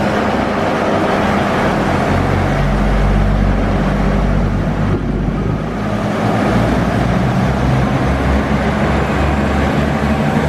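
Diesel railcar running, heard from inside the carriage: a low engine drone that shifts in pitch over the steady rumble of the wheels on the track.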